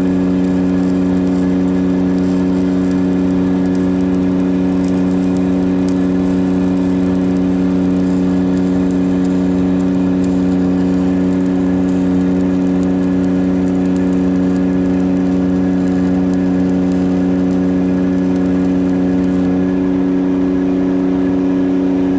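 Engine running steadily at one constant speed, a droning hum. A faint high crackle over it stops about three seconds before the end.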